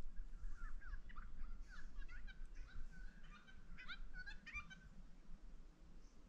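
Birds chirping and whistling in a quick run of short notes, which stop about five seconds in.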